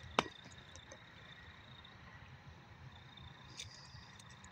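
Faint night ambience: a steady high-pitched trill of a distant night chorus of calling animals. A single sharp click sounds just after the start.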